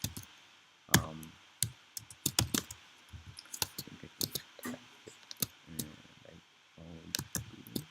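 Typing on a computer keyboard: irregular keystroke clicks as code is entered.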